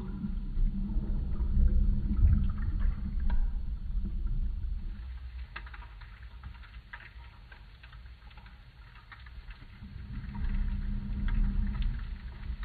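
Underwater sound of disturbed water: a low rumble with scattered faint clicks and crackles of bubbles. It is strong at first, eases off in the middle and swells again near the end.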